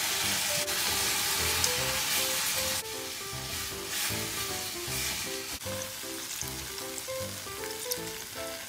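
Sizzling in a hot frying pan as milk is poured a little at a time into a flour roux and stirred in with chopsticks. The sizzle is strongest for the first three seconds, then dies down as the sauce thickens.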